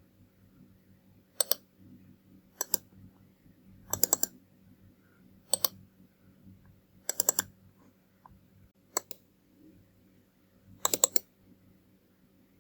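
Computer mouse buttons clicking: about seven groups of sharp clicks, single clicks and quick double or triple clicks, roughly every one and a half seconds.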